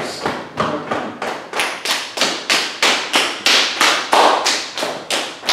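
Open hands slapping and patting down the arm and body in a steady rhythm, about three to four slaps a second: qigong tapping self-massage.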